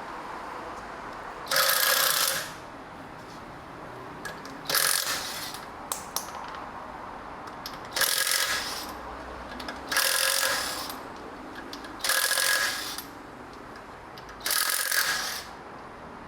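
Impact wrench spinning off a car wheel's lug nuts in six short bursts of about a second each, a couple of seconds apart.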